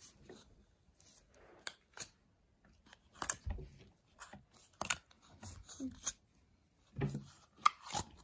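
Clear homemade slime being handled and stretched by hand, giving irregular sharp clicks and pops.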